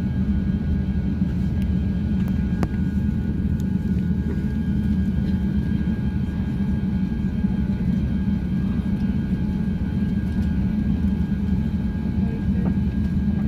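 Airbus A350-900 passenger-cabin noise on the ground before takeoff: a steady low rumble with a few faint, steady whining tones above it and occasional faint clicks.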